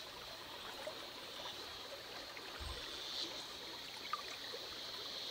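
Soft trickling and lapping of stream water over a wooden batea gold pan as it is worked by hand, washing the light sand off to leave black sand concentrate.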